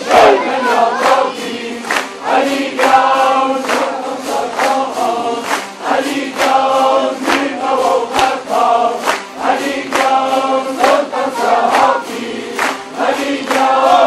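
A large ensemble of tanburs, long-necked lutes, strummed together in a steady rhythm, with many voices singing in unison over them.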